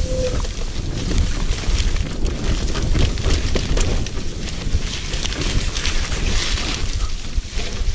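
Wind noise on a ride-mounted camera microphone as an all-terrain wheelchair rolls through tall grass. The grass swishes against the wheels and frame, with many small knocks and rattles.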